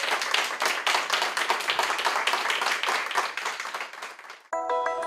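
A small group of people clapping, dense at first, thinning out and fading away about four seconds in. A short musical jingle starts just before the end.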